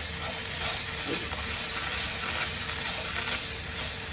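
Grated ginger frying in ghee in a nonstick frying pan, a steady sizzle as its moisture cooks off, with a spatula stirring.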